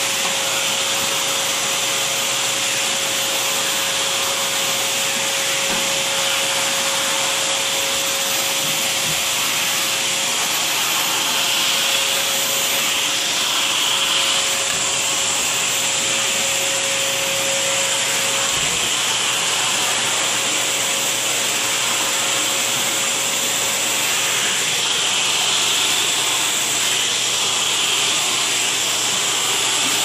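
Dyson vacuum cleaner running steadily, its hose grooming tool drawn through a dog's fur.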